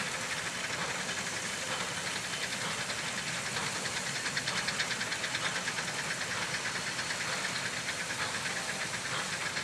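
1907 Avery 18 hp undermounted steam traction engine pulling a plow under load, its exhaust chuffing in a quick, steady rhythm.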